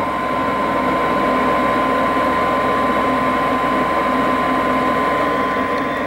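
Propane furnace in its startup sequence before the burner lights: the draft inducer motor runs steadily with a constant high whine over its hum.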